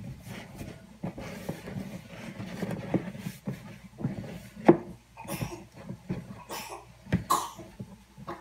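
Hands kneading wheat-flour roti dough in a plastic bowl: irregular soft thumps and rustling as the dough is pressed and turned, with the loudest knocks about halfway through and near the end.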